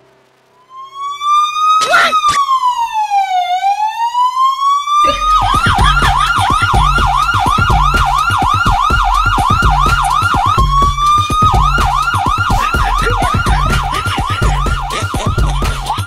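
Fake police siren: one slow wail rising and then falling, then a fast repeating yelp from about five seconds in, with a short wail partway through. A pounding low beat runs under the yelp.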